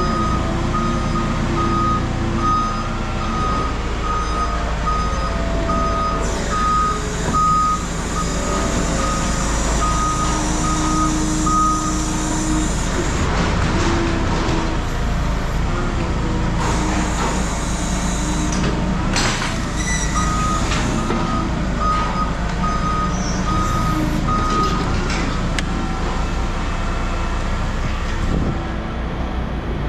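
A heavy vehicle's reversing alarm beeping evenly, about one beep a second, over a running engine. It stops about midway for several seconds, with a few sharp knocks in the gap, then resumes for a few seconds.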